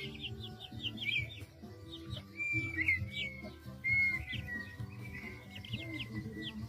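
Birds chirping: a quick run of short chirps at the start, longer drawn-out calls about two and a half and four seconds in, and another run of chirps near the end, all over background music.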